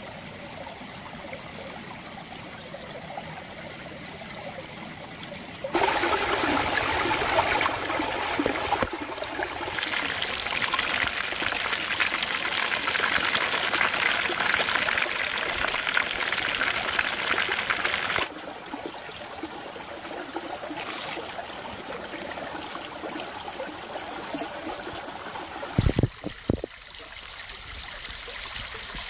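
Small creek running steadily over stones. For about twelve seconds in the middle a louder, brighter hissing takes over, and near the end there are a few short knocks.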